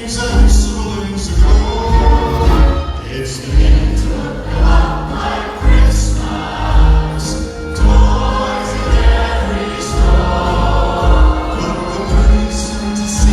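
Choir singing over music with a strong, regular beat.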